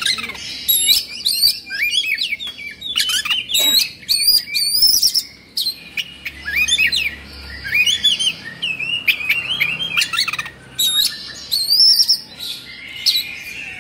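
An Oriental magpie-robin (kacer) singing a fast, unbroken stream of varied whistled notes that sweep up and down, mixed with harsh rasping notes. This is the agitated, fired-up 'emosi/kongslet' song that kacer keepers prize.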